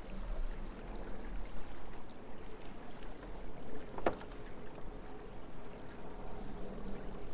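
Water washing along the hull of a J24 sailboat under way, with a low wind rumble on the microphone and a single sharp knock about four seconds in.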